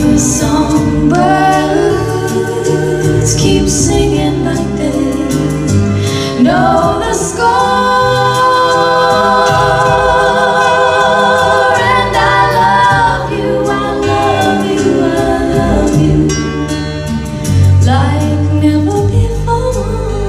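A recording of a woman singing a slow ballad, playing from a vinyl LP on a turntable. She holds long notes with a wavering vibrato over a low accompaniment.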